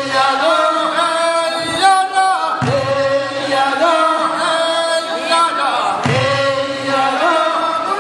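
A group of men singing a traditional Korean fishermen's song in long held phrases, a new phrase starting about every three and a half seconds.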